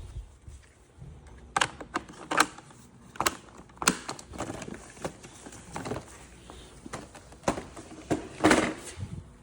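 Irregular plastic clicks and knocks from handling the Ecovacs Deebot X2 Omni robot vacuum, as its main roller brush is taken out and the replacement brush is fitted. There are about ten sharp clicks at uneven intervals, the loudest near the end.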